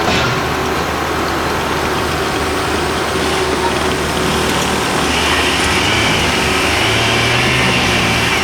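Construction-site machinery engine running steadily under dense clatter and noise, with a higher whine joining about five seconds in.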